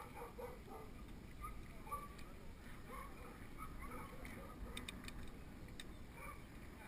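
Mountain bike rolling down an asphalt lane, with a faint low rumble of tyres and wind. A few sharp clicks come about five seconds in.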